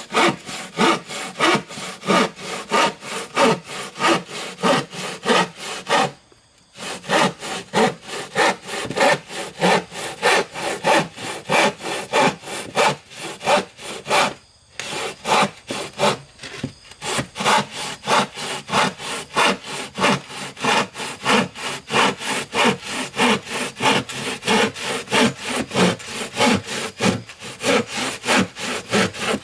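Hand saw cutting through wood in steady back-and-forth strokes, about two to three a second, pausing briefly twice.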